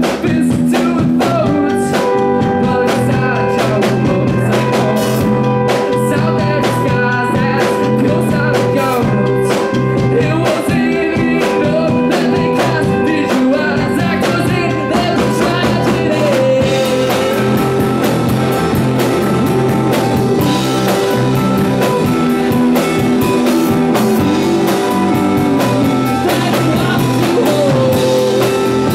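A live band playing: guitars and drums, with a harmonica played into a vocal microphone holding long notes over the band.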